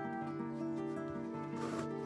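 Background music led by a plucked acoustic guitar, its notes changing steadily. A brief swish of noise comes near the end.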